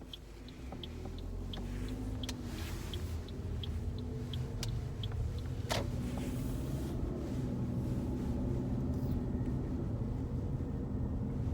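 Inside a moving car: engine and road rumble building as the car gets under way, with a turn-signal ticking about twice a second for the first five seconds and one sharp click about six seconds in.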